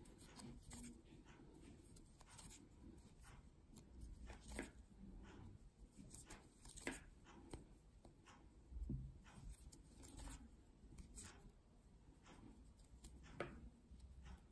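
Near silence with faint, irregular ticks and rustles of a metal crochet hook and yarn being worked by hand, stitch by stitch through single crochet.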